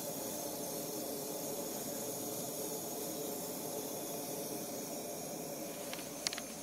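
MSR WhisperLite liquid-fuel camp stove burning steadily with an even hiss inside a homemade sheet-metal aircraft-engine preheater. A few faint clicks come near the end.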